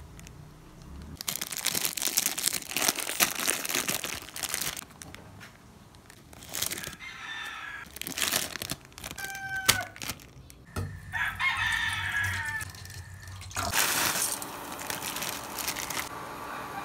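Plastic wrapper of an instant noodle packet crinkling and being torn open by hand, in several loud bursts. A rooster crows twice in the background, about seven seconds in and again about eleven seconds in.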